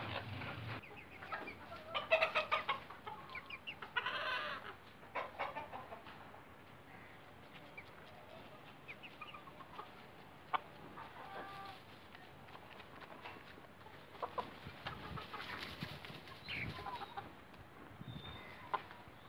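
Domestic hens clucking, with a run of louder clucks about two and four seconds in, then quieter, scattered clucks and small clicks.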